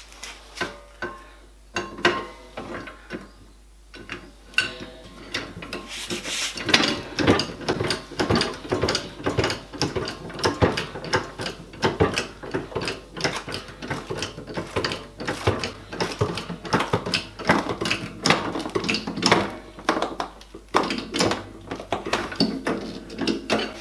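Ratcheting clicks and knocks as the glue-up press or its clamps are tightened down on the layered plywood: a few scattered clicks at first, then a fast, continuous run of ratchet clicks from about six seconds in.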